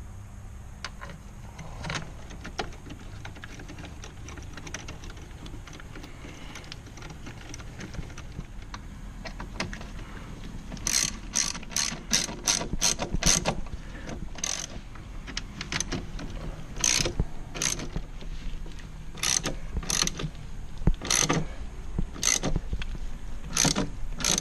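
Hand ratchet driving T30 Torx screws: quiet at first, then from about halfway through it clicks in quick runs, followed by single clicks spaced a second or so apart.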